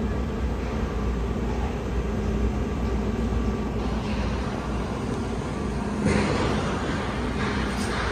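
Steady low rumble of distant road traffic and outdoor city noise, with a brief louder rush of noise about six seconds in.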